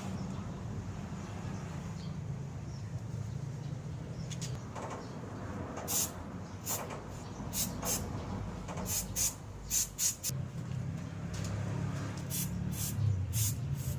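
Short hisses from an aerosol spray paint can, a dozen or so quick bursts from about six seconds in, over a steady low hum.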